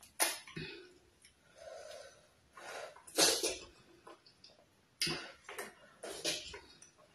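Close-miked wet mouth sounds of eating by hand: smacking and slurping on a sticky mouthful of cassava starch dipped in black soup, in several short bursts, with fingers sucked clean near the end.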